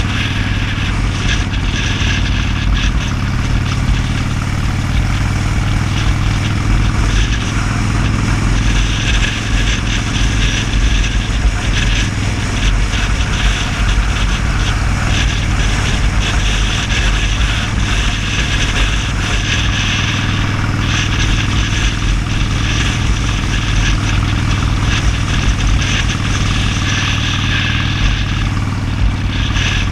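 Motorcycle engine running steadily at cruising speed on the road, with rushing wind and road noise over it.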